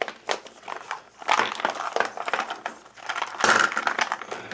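Small hard-plastic pieces and packaging being handled: clicking and clacking with crunchy, crinkly stretches, louder about a second in and again near the end.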